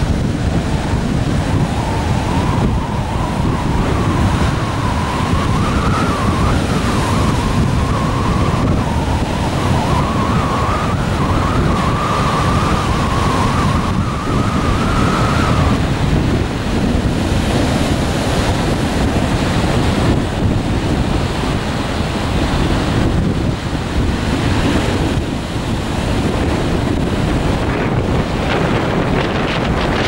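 Stormy sea surf: waves breaking and washing up a sandy beach, with wind buffeting the microphone. A faint wavering high tone runs through the first half and stops about halfway.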